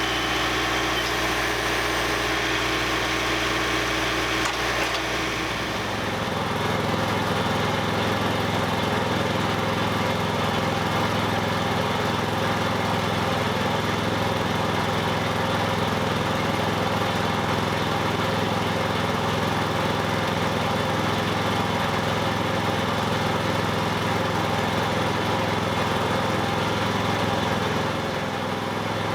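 Small engine of a log-milling sawmill running steadily; its note changes abruptly about six seconds in and then holds.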